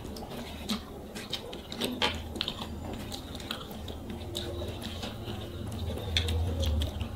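Two people eating rice and curry with their fingers: chewing and wet mouth sounds, with scattered short clicks of fingers mixing rice on the plates, over a low steady hum.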